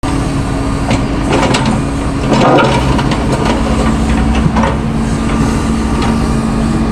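An engine running steadily, with scattered knocks and rattles over it.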